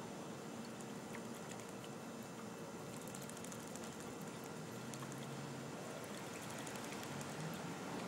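Young starling bathing in a shallow saucer of water, splashing and flicking droplets in a quick crackly patter from about three seconds in, over a steady background hiss.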